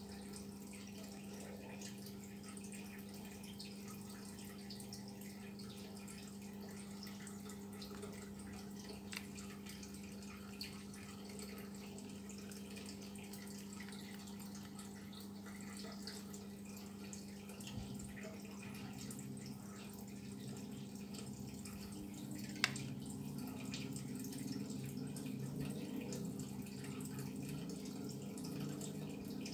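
Faint steady low hum with a few sharp, isolated clicks; in the last several seconds a rougher, uneven low sound joins in.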